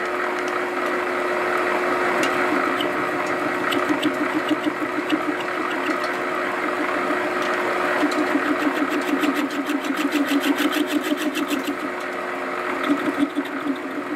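Small metal lathe running at about 300 RPM with a steady hum and an even, rhythmic pulsing several times a second. The tool bit cuts the spinning brass in an interrupted cut, with regular light ticks, heaviest about two-thirds of the way through.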